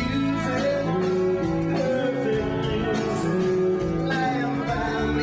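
Rock band music with guitar.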